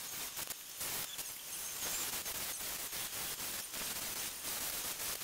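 Cordless drill boring through an aluminum wing spar web and bracket, giving a steady hissy cutting noise.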